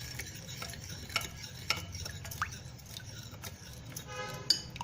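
Spoon stirring sweet lime juice in a vessel to mix in sugar and spices, with light irregular clinks of the spoon against the sides.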